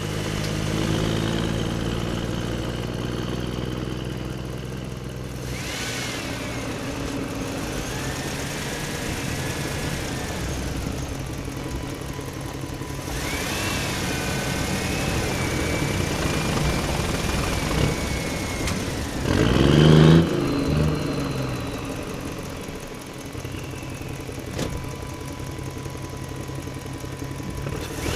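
A vehicle engine running, its pitch rising and falling, with a loud rev about twenty seconds in.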